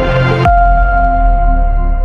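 Background music: ambient synth notes, changing to a new long-held chord about half a second in.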